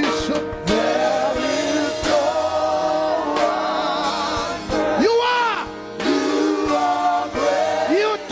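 Gospel worship music: voices singing a slow praise song over instrumental backing, with long, wavering held notes.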